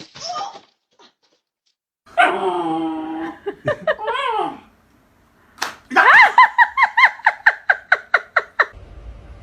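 Dog vocalizing: a drawn-out whine about two seconds in, a few sliding notes, then a run of rapid high-pitched yips, about four a second, for nearly three seconds.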